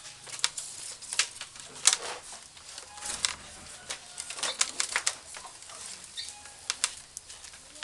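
Flat rattan strip rustling and rasping as it is pulled tight and wrapped around a bamboo joint, with irregular crisp clicks and scrapes.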